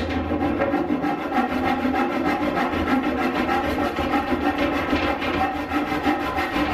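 Rusty old handsaw cutting through wooden quarter round trim in steady back-and-forth strokes.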